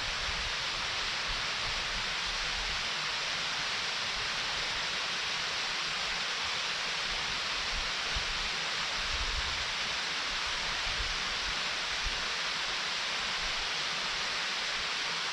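A waterfall rushing steadily: an even, unbroken hiss of falling water, strongest in the upper-middle range.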